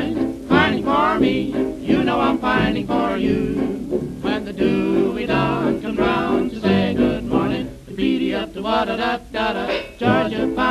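Hot jazz dance band playing a fox trot, heard from a 1929 78 rpm record.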